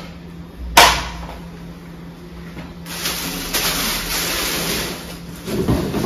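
Unpacking noise: one sharp plastic click about a second in, then rustling of plastic wrapping and handling as a vacuum cleaner hose is pulled out of its box.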